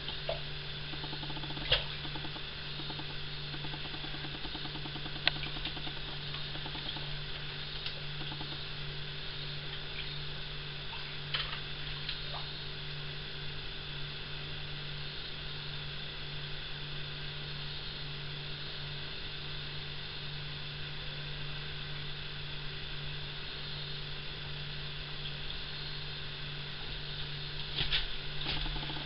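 Steady low hum, with a few sharp clicks early on and small water splashes near the end as a fabric dog cooling coat is pressed and squeezed down into a plastic bowl of water to soak.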